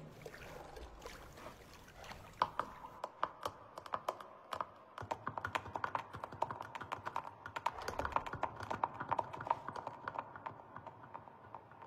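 Hooves of several giraffes clattering on a hard tiled floor as they walk: a rapid, irregular clicking that starts about two seconds in and thins out near the end.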